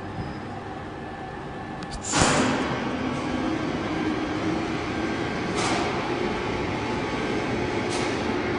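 Crankshaft lathe running with a steady machine hum; about two seconds in it becomes suddenly louder with a rushing, hissing noise that carries on. Brief sharper hisses come twice more, a couple of seconds apart.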